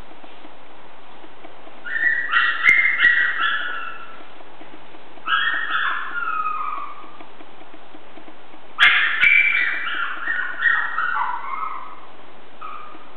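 Eight-week-old Chihuahua puppy yipping and whining in high-pitched, falling calls that come in three bouts, with a few sharp clicks among them.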